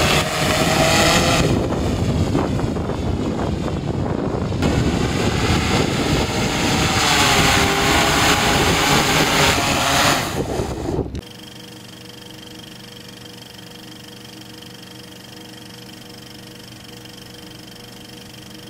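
Freefly Alta 8 octocopter's eight propellers whirring as it flies low and comes down to land, the pitch wavering up and down as the motors speed up and slow. The sound cuts off sharply about eleven seconds in, leaving a faint steady hum with a few held tones.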